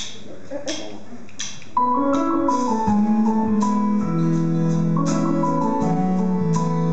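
A few evenly spaced clicks, then a band starts a song about two seconds in with a keyboard intro of held, organ-like chords over a stepping bass line.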